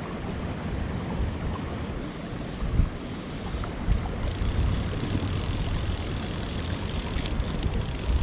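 Wind buffeting the microphone: a steady low rumble with a few louder gusts. A higher hiss comes in about four seconds in and stops about three seconds later.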